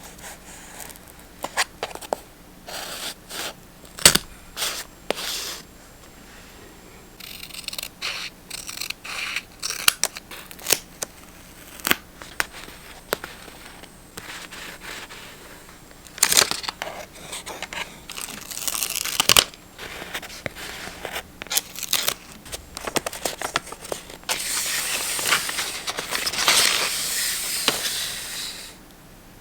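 Paper and stationery being handled close up for journal decorating: scattered crinkles, taps and crackles, and a longer stretch of paper rustling or tearing about three quarters of the way in.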